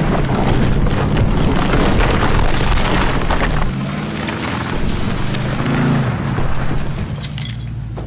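Ford F-150's 3.5-litre twin-turbo EcoBoost V6 pulling hard under load as the truck drags a heavy log up a dirt grade, with the log and tyres churning dirt, dying down near the end. A music bed with steady low notes runs underneath.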